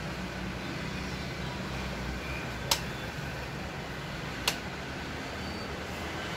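Steady low hum and hiss of room background noise, with two sharp clicks about two seconds apart.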